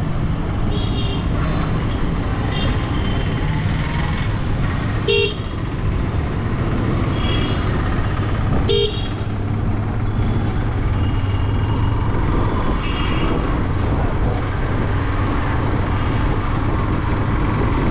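Motorcycle riding along with a steady engine and wind rumble, cut by several short horn toots, the two loudest about five and nine seconds in.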